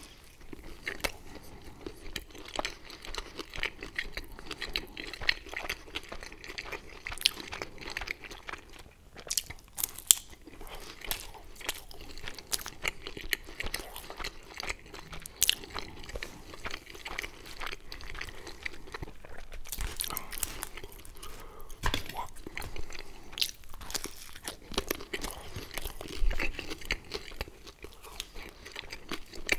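Close-miked eating sounds of a man biting and chewing pizza, the crust crunching in many short, sharp crackles.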